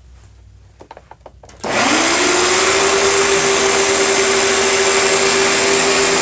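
Hoover TurboPOWER 5000 canister vacuum switched on about a second and a half in: its rebuilt motor spins up quickly, then runs steadily and loud with a high whine.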